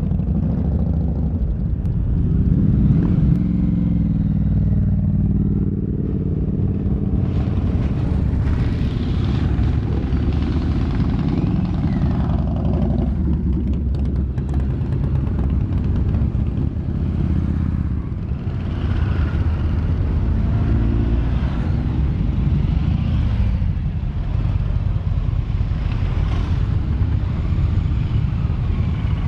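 A column of motorcycles riding slowly past one after another, their engines running at low revs. A few seconds in, one engine's pitch rises as that bike accelerates away.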